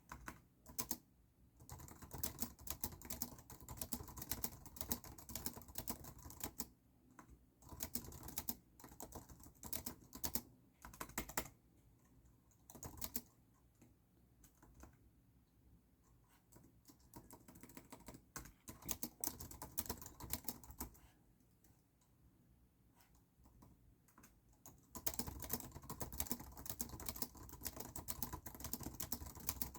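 Typing on a computer keyboard in bursts of rapid keystrokes with short pauses between. The keystrokes thin out in the middle, then pick up again to fast, steady typing near the end.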